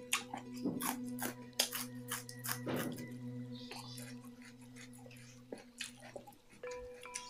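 Close-up crunching and chewing of a raw lemongrass stalk: a string of sharp, crisp crackles, dense in the first few seconds and thinning out later.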